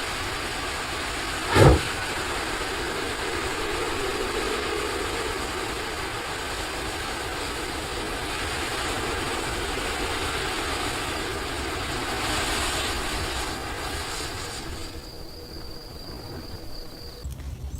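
A giant ball of matches burning: a sudden loud flare about two seconds in, then a steady rushing burn that dies down near the end.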